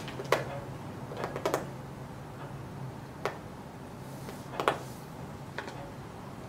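About six light, sharp clicks and taps, scattered irregularly, from small objects being handled at a table, over a steady low hum.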